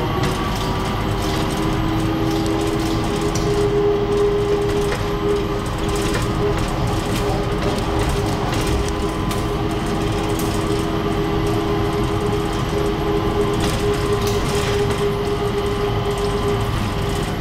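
Changi Airport Skytrain, a driverless rubber-tyred people mover, running at steady speed along its guideway, heard from inside the car: a steady rumble with two steady humming tones.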